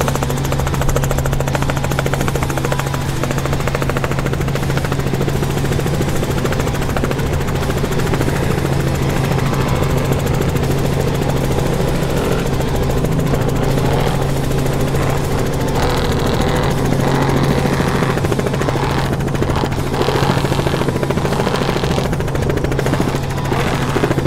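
Helicopter running steadily, heard from inside the cabin: a constant low hum with a rapid beat from the rotor, unchanging throughout.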